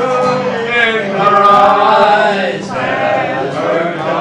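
A man singing a slow song with held, wavering notes, other voices joining in, to an acoustic guitar.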